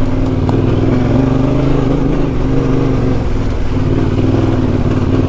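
Motorcycle engine running at fairly steady low revs while being ridden, its note wavering only slightly.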